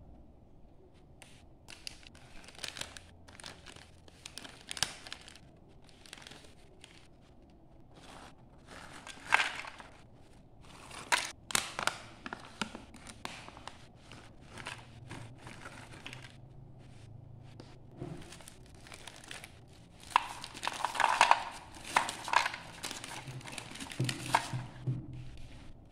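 Plastic snack wrappers crinkling and rustling as they are handled, with potato chips and then biscuits poured out into a plastic divided tray in irregular crackles and clatters. The densest, loudest stretch comes near the end as the biscuits tumble out.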